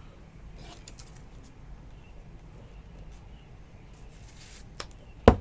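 Quiet handling of a trading card being slid into a clear rigid plastic card holder, with a few faint clicks over a low steady hum, then two sharp taps close together near the end.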